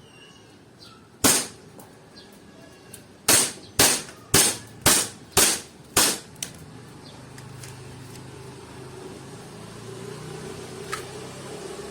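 E&C Glock 19X gas blowback airsoft pistol test-fired: one sharp shot, then six more in quick succession at about two a second, the gun freshly charged with gas and loaded with BBs.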